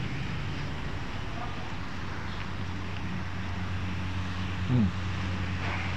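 A steady low mechanical hum over a faint background din, with one short falling tone about five seconds in.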